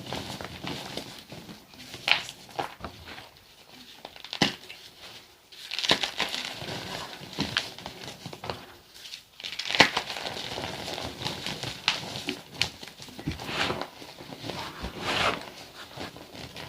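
Blocks of gym chalk mixed with sand being crushed and crumbled, crunching and crackling in irregular bursts.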